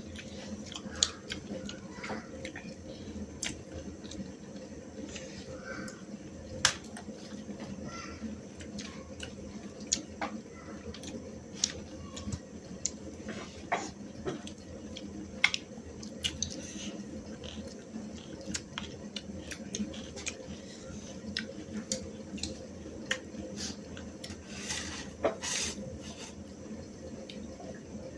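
Scattered clinks and taps of serving spoons and fingers against stainless steel bowls during a meal eaten by hand, over a steady low hum. A short rush of noise comes near the end.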